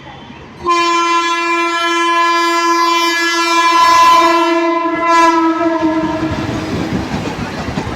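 Mumbai suburban electric local train sounding its horn: one long steady blast that starts suddenly about a second in and fades out after about five seconds, giving way to the running noise of the train on the rails.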